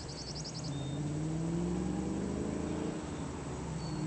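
Modified Ford Mustang GT 4.6 V8 with long-tube headers, catted H-pipe and Flowmaster tips, faint and still out of sight, accelerating: its exhaust note rises in pitch, drops off at a gear shift about three seconds in, then pulls again at a lower pitch.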